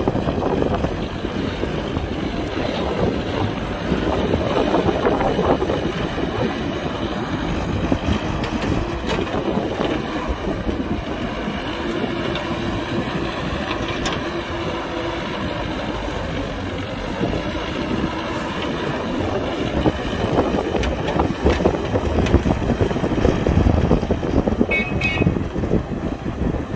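Heavy diesel engine of an excavator running as it digs, its rumble swelling and easing and growing louder over the last few seconds, with wind buffeting the microphone.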